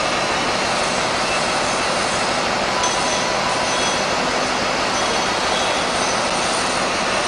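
Steady, even running noise of a bus heard from the driver's seat, the engine and air-conditioning blowing with no change in level.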